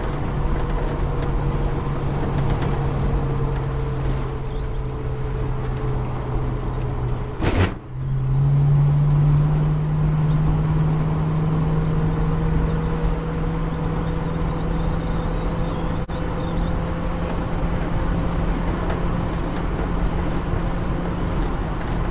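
Car engine and road noise heard from inside the cabin, a steady drone that sags slightly. About seven and a half seconds in there is a brief sharp clatter, after which the engine note rises and gets louder as the car picks up speed again.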